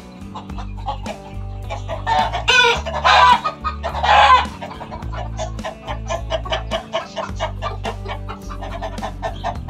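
A rooster crows loudly about two seconds in, one call of about two and a half seconds, with hens clucking, over background music with a steady beat.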